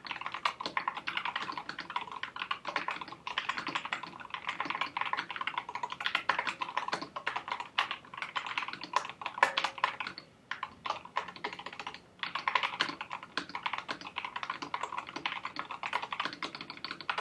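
Corsair K100 mechanical gaming keyboard being typed on fast, a dense stream of key clicks and key-bottoming strokes. The stream breaks off briefly about ten and twelve seconds in.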